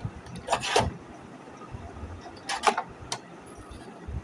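Handling noise: short clusters of clicks and knocks as an Epson EB-S02 LCD projector's plastic case is moved on a table and things beside it are shifted, about half a second in and again from about two and a half seconds in.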